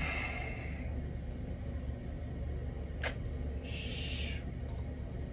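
Steady low room hum, with one sharp click about three seconds in and a brief scraping rustle just after, as long acrylic nails fumble at food in a bowl.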